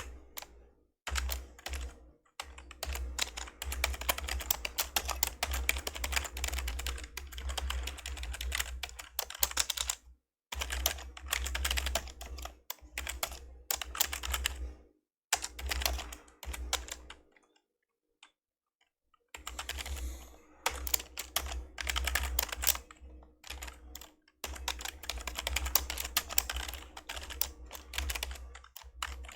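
Old membrane computer keyboard being typed on in fast runs of soft clacks, broken by short pauses, the longest about two seconds long a little past the middle.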